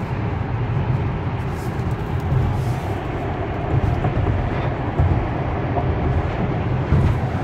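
Steady freeway driving noise heard from inside an electric car's cabin: tyre and wind noise with a deep, even rumble, from heavy trucks close alongside in the next lane.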